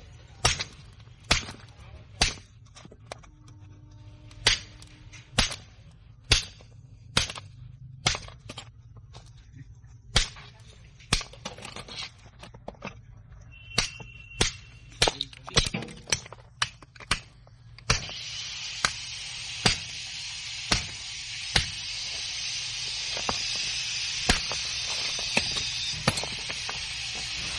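Repeated metal blows on a refrigerator compressor's steel shell, about one a second, as it is being cut open. About two-thirds of the way through, a steady hiss joins the blows.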